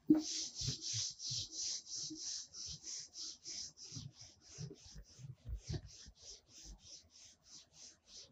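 Whiteboard duster wiping the board in quick back-and-forth strokes, about three a second: a rhythmic rubbing that grows gradually softer.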